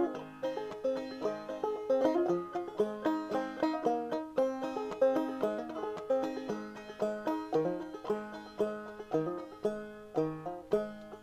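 Background music: fast plucked banjo picking, bluegrass style.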